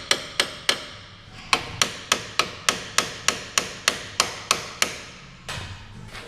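Hammer blows on metal: three quick strikes, a short pause, then a steady run of about a dozen at roughly three a second, each ringing briefly. A short scraping noise follows near the end.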